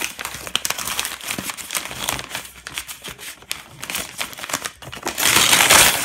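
Crinkling and rustling of parcel wrapping being handled and pulled away, with a louder, longer rustle about five seconds in.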